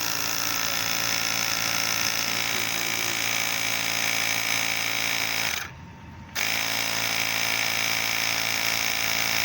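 Small electric air pump running steadily as it inflates a riding-mower tire, cutting out briefly about six seconds in and then starting again.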